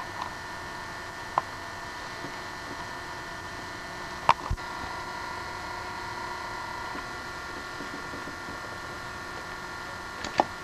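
A 1965 Sears 33⅓ rpm training LP's lead-in groove playing: steady surface hiss and hum with a few sharp pops, the loudest about four seconds in.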